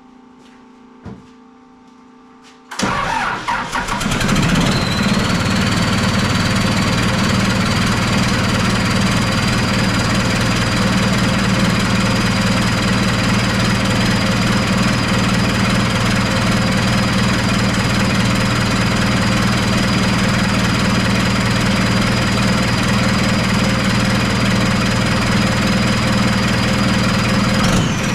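Cummins diesel engine in a Case 430 skid steer starting about three seconds in and then running steadily. A high whine rises as it catches and then holds steady.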